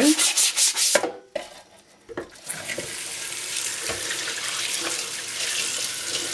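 A new dish brush scrubbing the grill's grease drip tray with a few quick scratchy strokes. Then, about two seconds in, the tap runs and water splashes steadily over the tray as it is rinsed in the sink.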